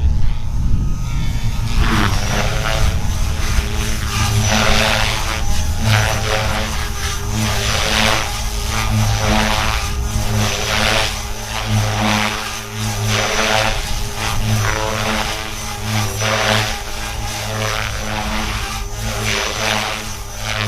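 Toy RC helicopter's small electric motor and rotor whirring, with a steady whine from about two seconds in and a rushing noise from the rotor that swells and fades repeatedly.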